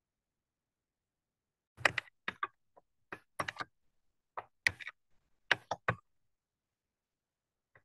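Microphone dropping out: dead silence broken by scattered bursts of short clicks and crackles between about two and six seconds in.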